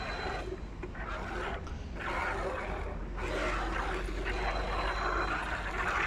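Hand-milking: jets of milk from a cow's teats hiss into a steel bucket of frothy milk, in uneven stretches with brief pauses, over a steady low rumble.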